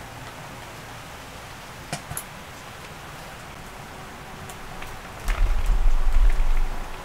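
Steady rain falling on a tent, with a couple of light clicks about two seconds in. About five seconds in a loud low rumble rises over the rain for a second and a half, then fades.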